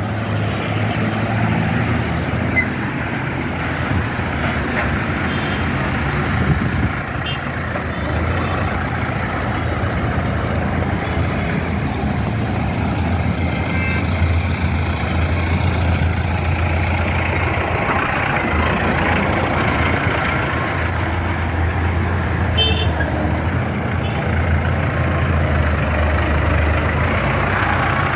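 Mahindra Novo 605 DI PP tractor's four-cylinder common-rail (CRDI) diesel engine running steadily while the tractor is driven.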